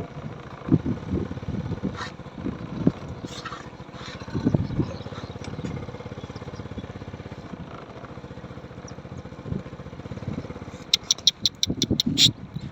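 A small engine running steadily, with low irregular thuds in the first half and a quick run of sharp clicks near the end.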